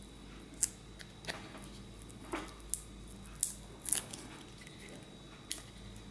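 Blue plastic spudger working under an iPhone 8's glued-in battery: scattered small clicks and scrapes of plastic against the phone's frame and battery, about seven in six seconds, as the tool is levered against the battery adhesive.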